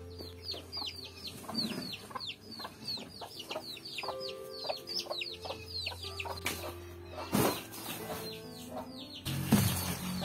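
Chicks peeping in a rapid run of short, high, falling chirps, about three to four a second, over soft background music, with two knocks in the last few seconds.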